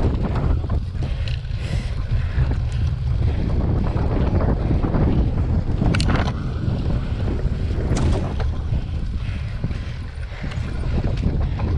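Wind buffeting an action camera's microphone as a cyclocross bike is ridden over bumpy grass, a steady heavy rumble. Two sharp knocks come about six and eight seconds in.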